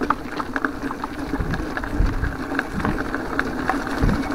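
Mountain bike rolling along a dirt trail covered in leaves: a steady tyre rumble with scattered short rattles and clicks from the bike, and a few low bumps.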